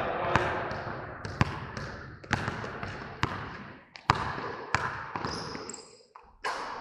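Sharp knocks or taps at an uneven pace of about one a second, over a hiss that gradually fades away.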